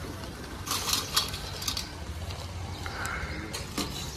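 Metal clinking and jangling from the steel pans and chains of a hand-held balance scale as it is handled and lifted for weighing, with a few sharp clinks around one second in and newspaper crinkling.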